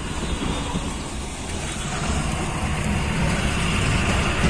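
Hyundai Xcent's three-cylinder diesel engine idling with exhaust noise, growing a little louder from about two seconds in. It runs smoothly with no misfire or knocking once the faulty ECM has been replaced.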